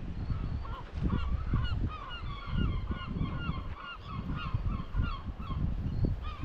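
A bird calling over and over in short, evenly repeated calls, about three a second, with wind buffeting the microphone in gusts underneath.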